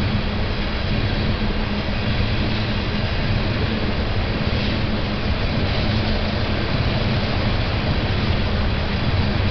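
Tank cars of a BNSF oil train rolling past: a steady, unbroken noise of steel wheels on rail with a low hum underneath.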